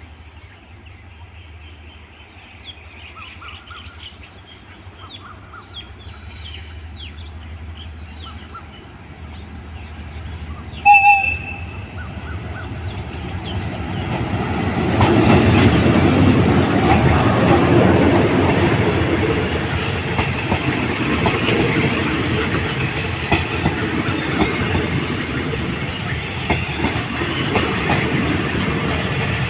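A train approaching and running through the station onto the diverging track. It grows from faint to loud, gives one short horn blast about a third of the way in, then passes close by with a heavy rumble and wheel clatter over the points.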